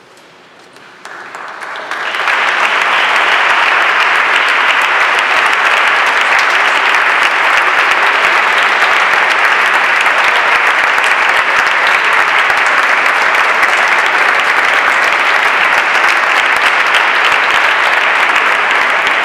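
Audience applauding. The clapping starts about a second in, quickly swells, then holds steady and loud.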